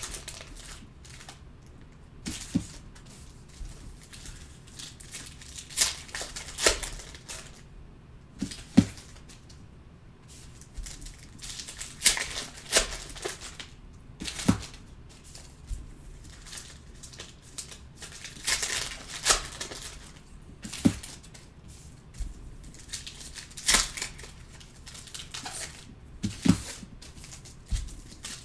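Foil trading-card pack wrappers being torn open and crinkled by hand, with the cards inside being handled. The sound comes as irregular sharp crackles and short tearing rustles.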